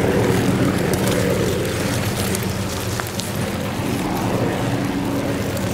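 Steady drone of an aircraft engine, with faint scattered crackling ticks over it.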